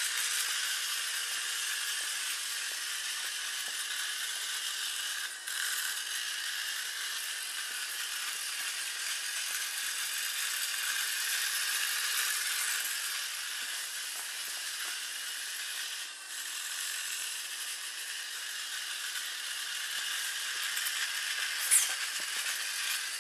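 Small electric motor and gears of a solar-powered toy car whirring steadily as it drives. The whir dips briefly twice, and there is one short, sharp sound near the end.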